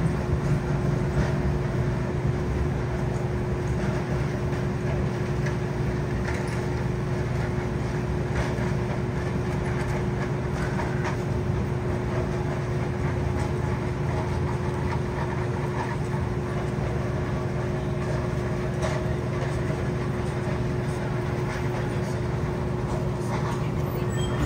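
Steady low street drone with a constant hum, like idling traffic or machinery, holding the same level throughout.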